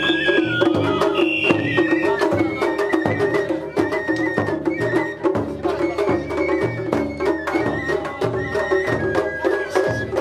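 Japanese festival music (matsuri-bayashi) played on a parade float: taiko drums beat a steady repeating rhythm, with many sharp high strikes and a thin, high held melody line over them.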